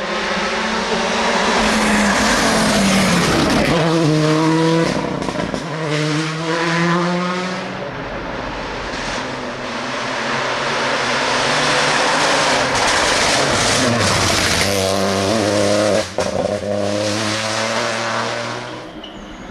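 Rally car engine pulling hard up the road, revs rising and dropping back again and again as it shifts up through the gears, growing louder as the car approaches and fading near the end.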